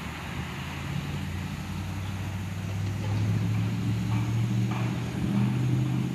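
Diesel locomotives of an approaching freight train, their engines' low hum growing steadily louder.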